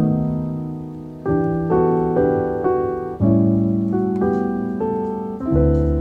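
Background piano music: slow chords, each left to ring and fade before the next one comes in.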